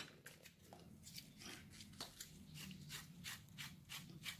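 Near silence: faint workshop room tone with light, evenly spaced ticks about three or four a second, a low hum, and one soft click about two seconds in.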